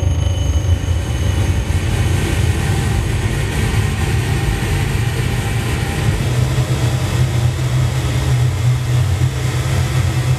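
Live experimental electronic noise music: a dense, loud low drone under a wash of hiss, with the low drone stepping up in pitch about six seconds in.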